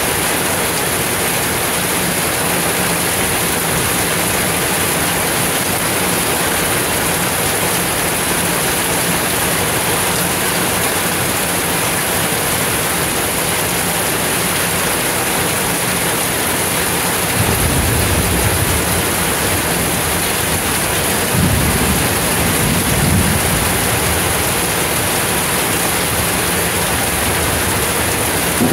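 Heavy rain pouring steadily onto a paved street in a thunderstorm, with two low rumbles of thunder about two-thirds of the way through, a few seconds apart.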